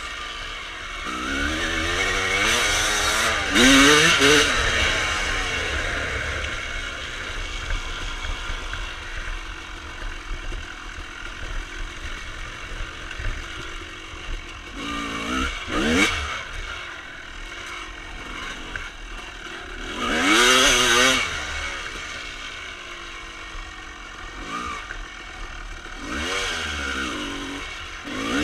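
1995 Honda CR250R's single-cylinder two-stroke engine, fitted with Pro Circuit pipes, being ridden on a trail. It revs up hard in rising pulls several times, with quieter running off the throttle between.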